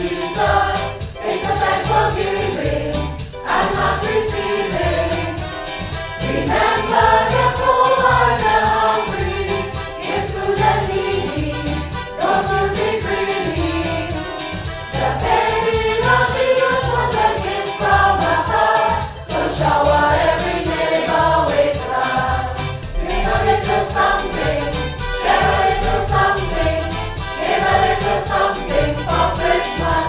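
A choir singing a gospel-style church song, with keyboard accompaniment and a steady beat.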